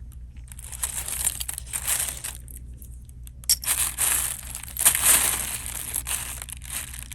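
Plastic bags crinkling and rustling as jewelry is handled and sorted, in two stretches with a short lull between them.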